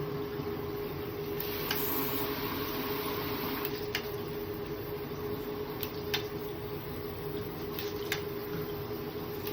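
Steady mechanical hum with one held mid-pitched tone, broken by a few light clicks.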